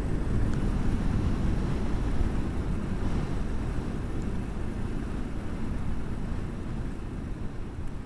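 Kawasaki Versys-X 300 motorcycle on the move on a dirt road: a steady low rumble of engine, tyres and wind on the microphone, gradually growing quieter over the last few seconds.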